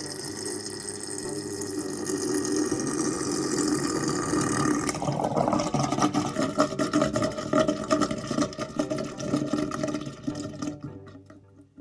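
Water draining from a filled bathroom sink down the plughole, gurgling as if choked in the pipe. The first few seconds are a steady rushing hiss; about five seconds in it turns into louder, irregular glugging, which stops shortly before the end.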